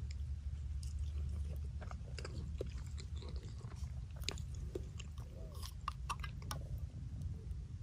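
A person chewing canned sausages close to the microphone, with scattered small clicks and scrapes from handling the opened tin can and its rolled lid.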